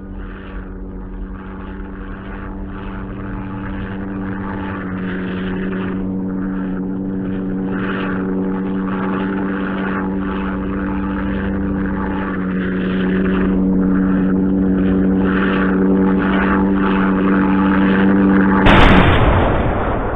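Propeller aircraft engine drone, steadily growing louder, its pitch stepping up slightly twice. Near the end a sudden loud explosion cuts in, followed by a thin high ringing tone.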